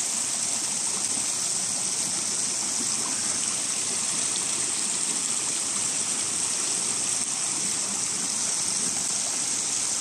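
Steady rush of falling and flowing mountain water, a continuous even hiss with no breaks.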